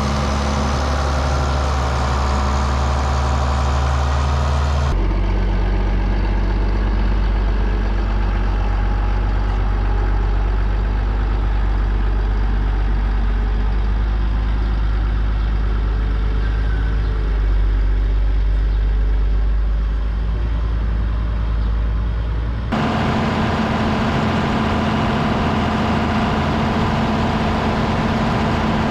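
Farm tractor engine running steadily under load. Its sound changes abruptly twice, about five seconds in and again past the twenty-second mark, and is lower-pitched in between.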